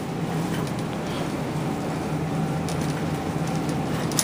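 Shopping cart rolling along a store aisle, its wheels giving a steady rumble, over a low steady hum.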